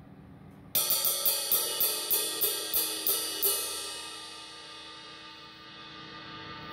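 20-inch Sabian AA Sound Control ride cymbal (2400 g) struck with a wooden drumstick: about ten quick strokes over three seconds, each a sharp ping over a bright ringing wash, which then rings on and slowly fades.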